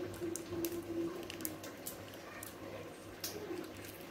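Milk poured in a thin stream into a bowl of blended fruit mixture: faint liquid trickling and squishing, with a few soft clicks.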